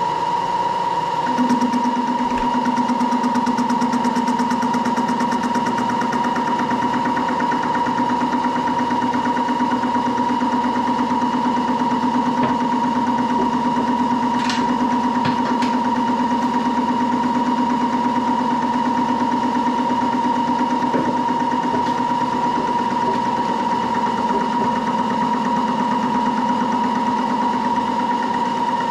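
Moore jig borer running, its spindle turning an offset boring head that is feeding down about three thousandths to bore an internal radius. A steady whine runs throughout, a second, lower hum comes in about a second and a half in, and a few light clicks come about halfway.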